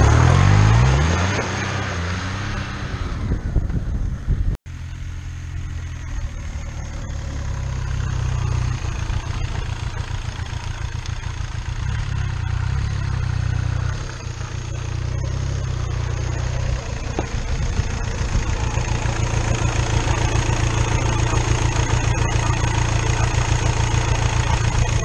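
Diesel motorcycle with a Volkswagen Lupo 3L 1.2-litre three-cylinder turbo diesel passing close by, its engine pitch falling as it goes. After a cut, the same engine is idling with an even, rapid pulsing beat.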